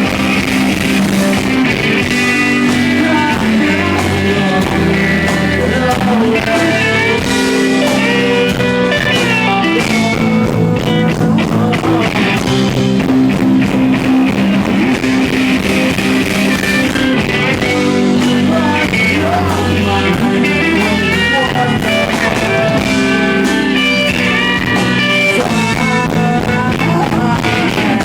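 Live rock band playing a song: electric guitars picking melodic lines over bass and drums, heard through an audience recording.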